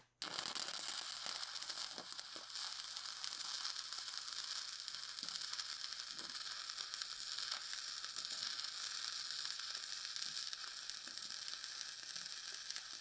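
E6010 stick-welding arc crackling and sizzling steadily as the rod burns along the edge of a steel lap joint, run at about 85 amps with the dig (arc force) turned up to 70. The arc is struck just as the sound starts and breaks off at the very end.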